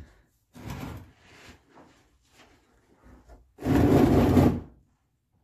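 Handling noise as hands with a wrench reach in at the plastic oil drain container under the truck: a short rub about half a second in, then a louder scraping rub lasting about a second, about four seconds in.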